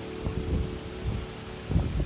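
Typhoon wind gusting against the microphone in low rumbling buffets, with a few faint held tones underneath that stop near the end.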